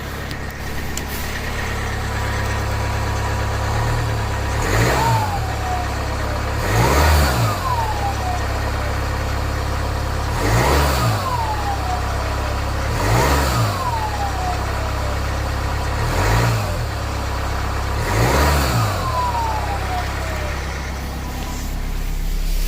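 Jaguar F-Pace's 2.0-litre four-cylinder diesel idling cold and blipped about six times. After each blip a loud turbocharger whistle falls in pitch over a second or two. The whistle is the owner's complaint: the turbo whistles hard on a cold engine.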